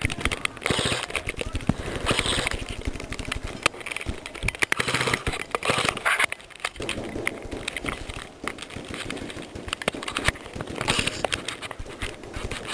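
Footfalls and the rustle and crackle of dry grass and stems as someone moves quickly through dead undergrowth, the stems brushing against the camera, in a run of irregular knocks and rustling bursts.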